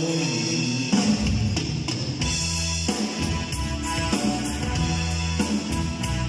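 Live band music: drum kit beating time under keyboard-played melody and chords.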